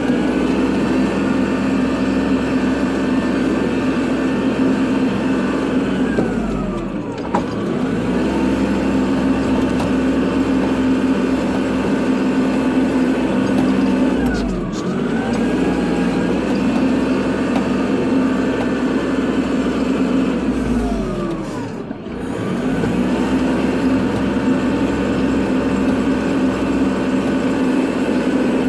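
Kubota tractor's diesel engine running steadily under load while plowing snow, its speed sagging and climbing back up about every seven to eight seconds, four times.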